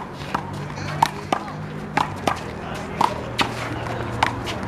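A rubber handball being slapped by hand and smacking off the wall and pavement, a sharp smack about twice a second, often in quick pairs, with music playing in the background.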